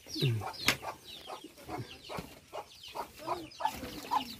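Chickens clucking, a run of short calls one after another, with one sharp knock about two-thirds of a second in.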